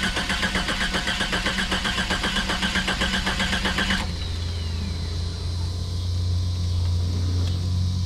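1991 Jeep Cherokee's starter cranking the engine in a fast, even chug of about six beats a second, without the engine catching. The cranking stops suddenly about four seconds in with a short falling whine, leaving a steady low hum.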